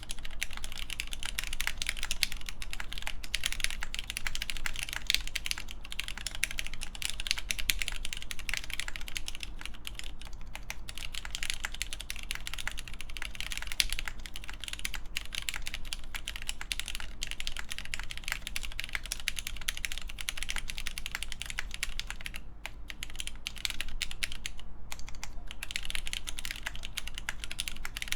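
Continuous typing on a custom mechanical keyboard with lubed linear Cherry MX Black clear-top switches, GMK keycaps and a polycarbonate plate: a dense run of keystrokes, with two short pauses about 22 and 25 seconds in.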